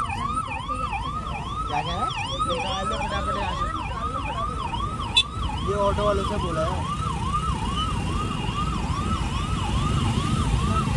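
Police vehicle siren in a fast yelp, its pitch swooping up and down about two and a half times a second without a break, heard from inside a moving car over low road rumble. A single sharp click comes about five seconds in.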